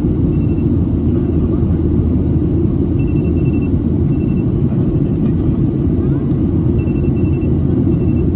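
Steady, loud rumble of a Boeing 737-700 in flight heard inside the cabin: the drone of its CFM56 turbofan engines and the airflow around the fuselage. A faint high pulsing tone comes and goes a few times over it.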